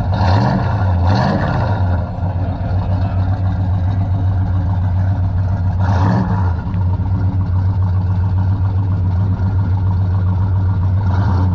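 1970 Pontiac GTO Judge's 455 HO V8 idling through its vacuum-operated exhaust. The throttle is blipped in short revs, twice near the start and once about six seconds in.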